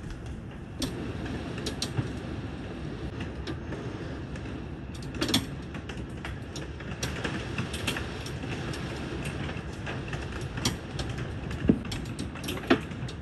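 Heavy rain with hail pelting a wooden deck and railing: a steady downpour hiss with irregular sharp cracks of hailstones striking, a few louder hits about five seconds in and near the end.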